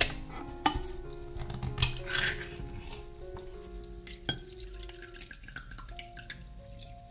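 A pull-tab tin of tuna popping open with a sharp metallic click, followed by a few clicks and scrapes of the thin lid. Then the tin's juice trickles in a thin stream into a glass bowl, with light taps of a wooden fork against the tin, over soft background music.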